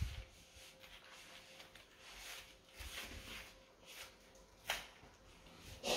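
Faint rustling and handling noises from a baby crawling and grabbing toys on a foam play mat, with a soft thump at the start and a sharp click a little before the end.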